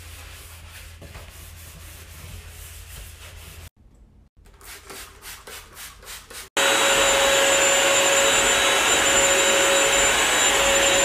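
A sponge scrubbing a bathtub with soft, rhythmic rubbing strokes. About six and a half seconds in, a corded upright floor cleaner cuts in, much louder, its motor running with a steady whine.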